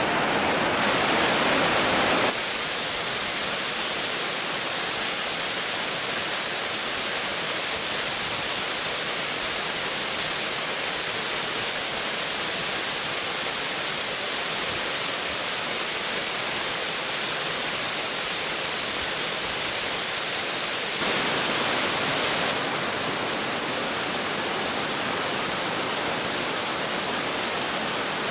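Steady rushing water of a mountain creek and waterfall, an even hiss. Its tone and loudness change abruptly a few times, about two seconds in and again near the end.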